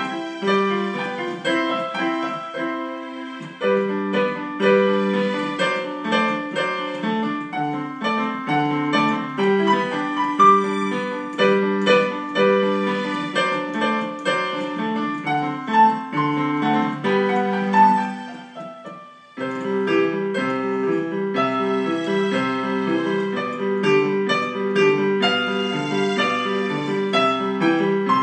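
Digital piano played in a grand-piano-and-strings voice: a continuous stream of single notes and chords in a simple piece. About two-thirds of the way through the playing fades for a moment, then resumes with a steadily repeated middle note under the melody.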